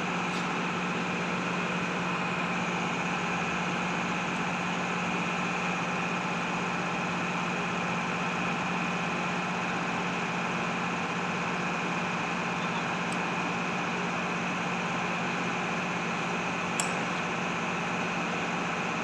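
A steady machine hum with a constant low drone that does not change, and one brief light click near the end.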